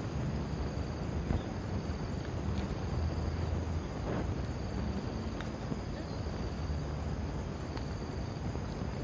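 Insects chirring steadily in the background over a low rumble, with a few faint taps and scrapes as a plastic toy excavator digs in the dirt.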